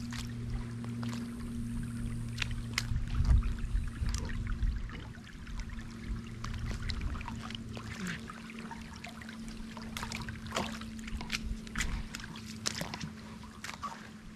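Water trickling and lapping around a canoe moving through very shallow water, with many scattered sharp ticks and drips and a steady low hum underneath. A heavier low thump or bump comes about three seconds in.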